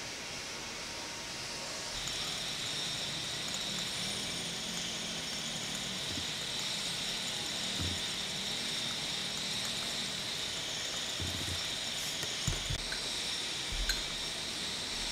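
Steady hiss of a boiling water bath: water bubbling in a glass beaker over its heater. A few soft knocks come near the end as the test tube is handled in the beaker.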